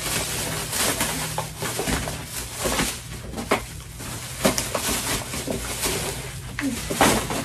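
Rustling and crinkling of bags and packaging as purchases are handled, with irregular sharper clicks and knocks, over a faint steady low hum.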